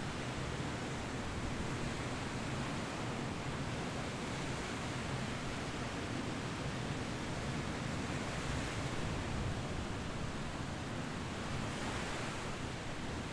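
Ocean surf washing in steadily, a constant hiss of waves that swells a little louder twice in the second half.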